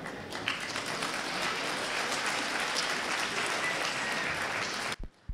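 Audience applauding, a crowd of hands clapping steadily. It cuts off suddenly near the end.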